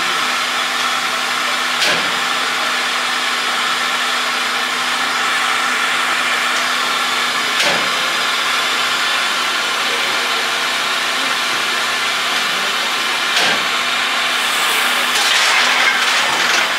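Class C61 steam locomotive standing at the platform, hissing steam steadily with a low hum under it and a soft thump about every six seconds. The hiss grows louder and brighter near the end.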